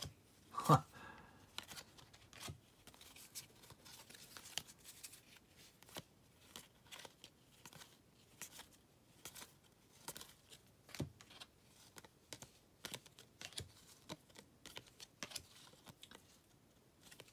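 Stack of 2017 Topps baseball cards being thumbed through by hand, each card slid off the top and tucked behind the rest: a run of soft, irregular clicks and rustles of card stock against card stock.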